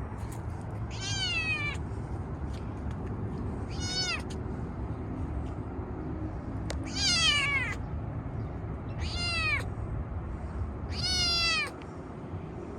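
Kitten meowing five times, a few seconds apart; each meow is high-pitched and falls in pitch.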